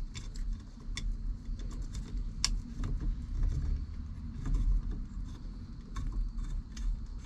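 Scattered light clicks and taps of small metal parts and hand tools being handled while fitting a steering wheel and its horn hardware, over a low rumble.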